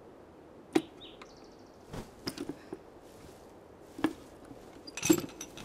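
A few sharp knocks and taps, spaced irregularly, with the loudest near the end, over faint high chirping of night insects.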